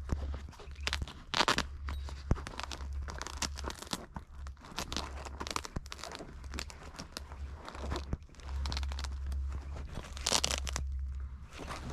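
Footsteps crunching through dry leaves and brush, with twigs and brush crackling and scraping in irregular bursts, loudest about a second in and again near the end.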